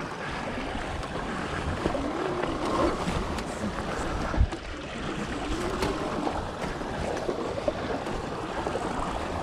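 Sur Ron electric dirt bike riding a muddy trail: a steady rush of wind and tyre noise on the chest-mounted microphone, with the motor's faint whine rising and falling twice with the throttle. One sharp thump about four and a half seconds in.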